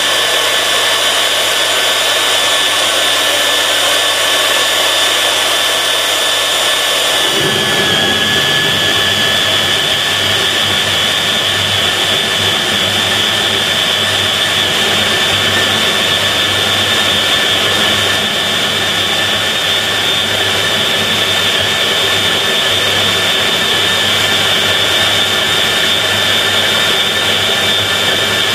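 Fein KBM 50 Auto magnetic core drill running under automatic feed, cutting a 50 mm hole in steel plate with a core cutter: a steady motor whine. About seven seconds in, a lower rough cutting noise joins and the whine drops slightly in pitch.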